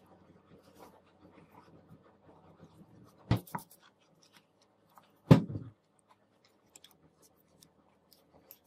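Faint rustling and scraping as gloved hands wind and handle cord on a sword grip, with small ticks and two sudden thumps, one about three seconds in and a louder, deeper one about two seconds later.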